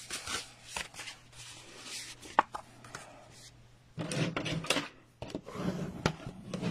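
White card stock being handled on a tabletop: scattered light taps and paper clicks, then paper rubbing, with a bone folder worked over the card, about four seconds in and again near the end.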